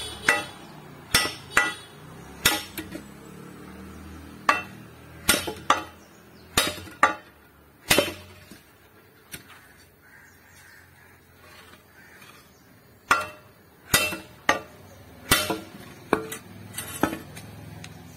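Iron hoe blade clanking as it is knocked down onto its new wooden handle against a wooden block: sharp ringing metallic strikes, many in pairs about half a second apart, with a pause of a few seconds midway.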